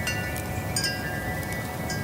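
Wind chimes struck by the breeze, ringing with several strikes whose bright metallic tones overlap and hang on, over a steady low rumble.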